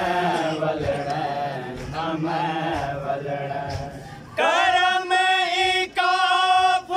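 Men chanting a noha, a Shia mourning lament, together in a group. About four seconds in, one strong lead voice takes over, singing long held notes.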